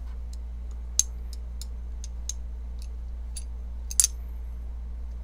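Light clicks and taps of a Twosun TS138 pocket knife's parts being handled as the unscrewed handle is worked apart. Two sharper clicks come about a second in and about four seconds in.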